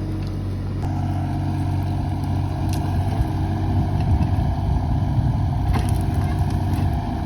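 Kubota U30 mini excavator's diesel engine running under working load, with a higher steady whine joining about a second in as the level rises, and a few light knocks.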